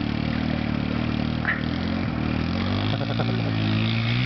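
Small dirt bike engine idling, then revved unevenly, its pitch rising and falling near the end.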